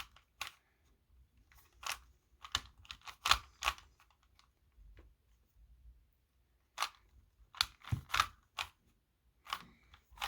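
Plastic clicks of a Rubik's brand 3x3 cube's layers being turned by hand, coming in quick clusters of a few turns with a pause of a couple of seconds between them.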